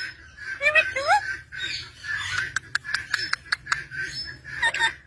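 Parrot chattering, with short rising whistles and sharp clicks.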